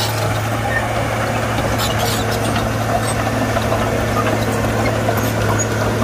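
Heavy earthmoving machine's diesel engine running steadily under work, a constant low hum with scattered faint clicks and clanks over it.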